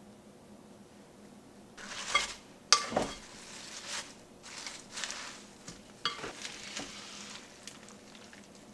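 Cooking in a pan: food sizzling while a utensil stirs and scrapes against the pan, with sharp clinks. It starts about two seconds in, after a quiet stretch.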